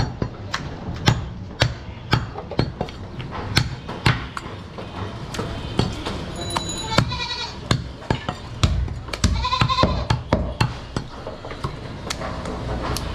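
A butcher's cleaver chops through goat meat and bone on a wooden block, striking steadily about twice a second. A goat bleats twice over the chopping, about halfway through and again a couple of seconds later.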